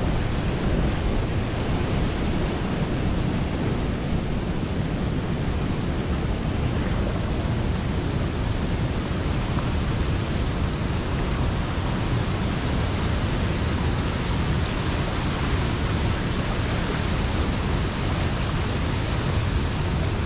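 Steady rushing of a large waterfall heard up close, its falling water churning the pool below.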